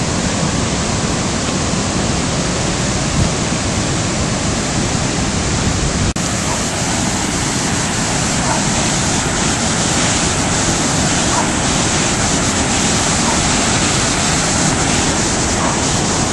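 Rushing floodwater: the steady noise of a swollen river flowing fast over flooded ground, with a brief break about six seconds in.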